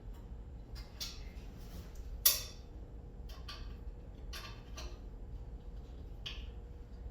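Sharp metallic clicks and clinks of an Allen wrench working the set screws on a cast aluminum mailbox post base, about seven separate clicks spread out, the loudest a little over two seconds in.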